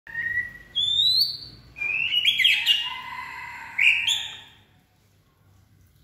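Male white-rumped shama singing, a bird in peak singing condition: three loud whistled phrases of clear, rising and sliding notes over the first four and a half seconds. The middle phrase is the longest and busiest.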